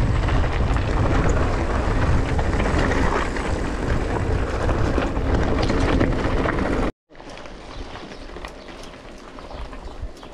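Mountain bike riding down a rough dirt trail: wind buffeting the microphone over tyre noise and a scatter of rattles and knocks. About seven seconds in it cuts off abruptly to a much quieter stretch with a few light clicks.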